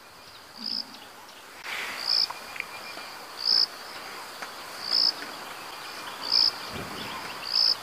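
An insect calling: a steady high-pitched trill with a short, louder pulse at the same pitch about every second and a half.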